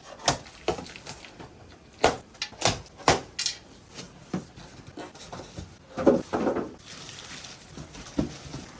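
Scattered knocks and bumps, about nine sharp ones with a short clatter about six seconds in, from handling the large cardboard box of a newly delivered microwave oven.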